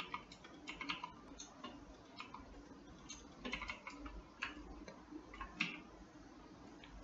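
Faint, irregular clicks of a computer mouse and keyboard as someone works in 3D modelling software, about a dozen short clicks spread unevenly.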